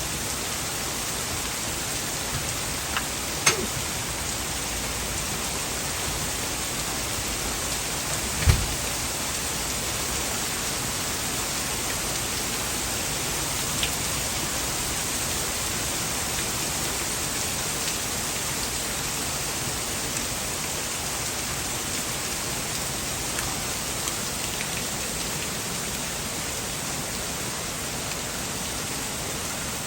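Hail and heavy rain pouring down and pattering steadily on a surface, as a constant hiss. A few louder knocks stand out, one about 3.5 s in and a stronger one about 8.5 s in.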